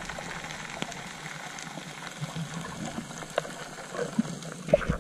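Underwater sound picked up by an action camera in its housing: a steady water hiss with scattered small clicks and bubble pops, turning into louder, busier water sounds near the end as the freediver breaks the surface.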